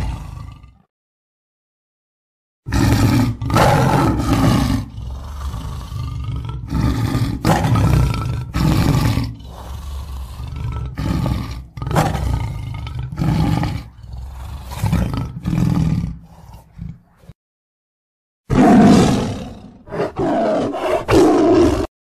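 Lion roaring in bouts. A short roar ends just under a second in. After a silent gap comes a long run of deep roars and grunts, one about every second, fading toward its end. After a short pause a second loud bout of roars comes near the end.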